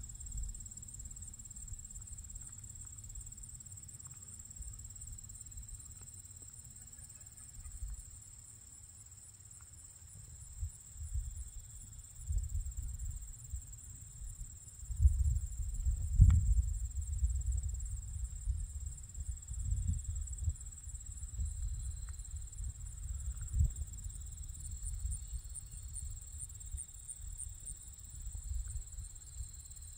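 Insects trilling steadily at a high pitch. Under them is a low rumble of wind buffeting the microphone, which gusts in and out and is loudest around the middle.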